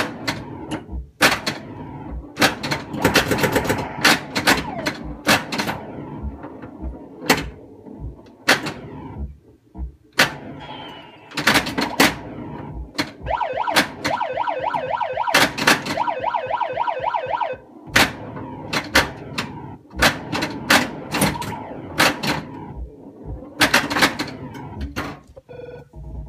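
1982 Bally Space Invaders pinball machine in play: many sharp clacks from the flippers, pop bumpers and ball strikes, over the machine's electronic sound effects, with a rapid pulsing tone for a few seconds in the middle.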